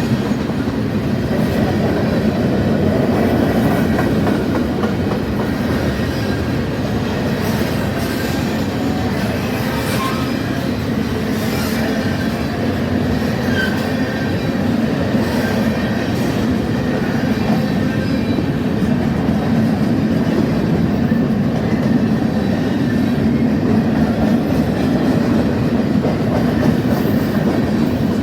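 Freight train cars rolling past in a steady rumble, with wheels clacking over rail joints and a couple of brief wheel squeals about ten and thirteen seconds in.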